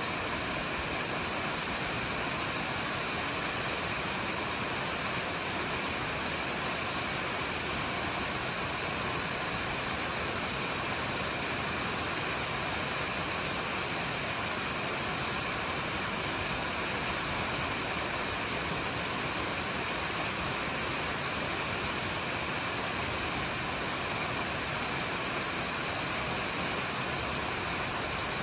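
Nachi Falls, a tall waterfall, giving a steady, even rush of falling water with no change in level.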